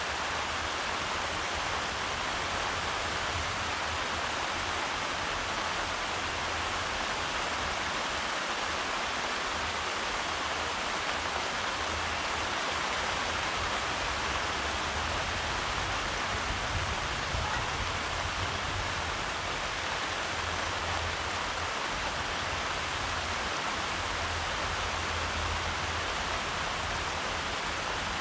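Steady rain falling, an even hiss of drops with no single drops standing out, over a faint low rumble that comes and goes.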